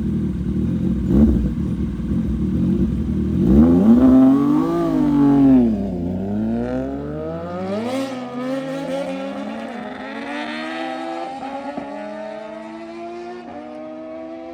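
CFMoto 675SR-R's 675 cc inline three-cylinder engine through an Austin Racing full exhaust, revving hard on track: the pitch climbs, dips and climbs again, with upshifts near the end as the sound fades away. The first few seconds are a rough, noisy rumble.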